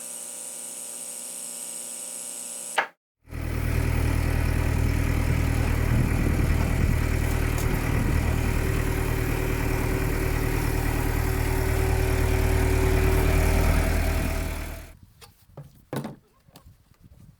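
A diesel engine of farm machinery running steadily at a constant speed, starting a few seconds in after a quieter steady hum, and falling away about three seconds before the end.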